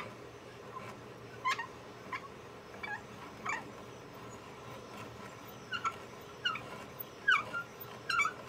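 Short, high squeaks repeating every half second to a second as a hand brace is cranked to bore a hole through a poplar board. The squeaks grow louder near the end.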